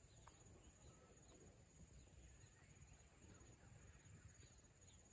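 Near silence, with a faint steady high-pitched trilling of insects in the background.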